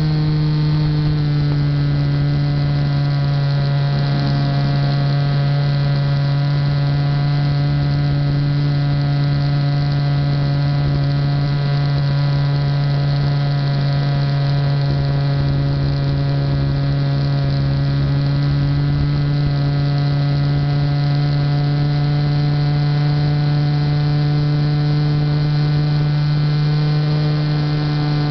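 Titan J3 aircraft's motor and propeller running steadily, heard from on board as a loud, even drone. Its pitch drops slightly about a second in and rises again near the end.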